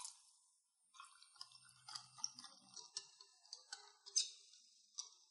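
Wire whisk beating a thin yogurt and gram-flour batter in a glass bowl: faint, irregular clicks of the wires against the glass with wet sloshing, starting about a second in.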